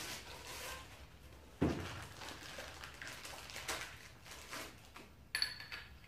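3/4-inch black steel pipe fittings handled by hand during assembly: light handling noise, a knock about one and a half seconds in, and a sharp metallic clink with a brief ring about five seconds in.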